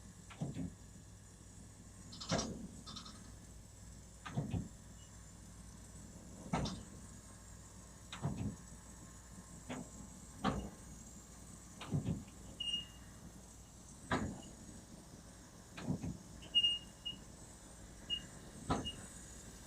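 Tram wheels knocking over rail joints at low speed, one knock about every two seconds over a low steady hum, with a few brief high squeaks in the second half.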